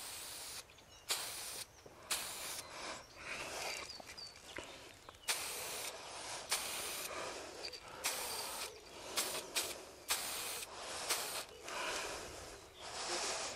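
Aerosol spray paint can hissing in a series of short bursts, about a dozen, each half a second to a second long with brief pauses between.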